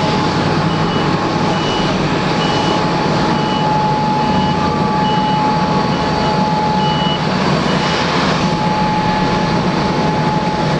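The Boeing 787-8's Rolls-Royce Trent engines running at idle, a loud steady rush with a steady whine. Over it a ground vehicle's reversing alarm beeps about one and a half times a second, stopping about three-quarters of the way through.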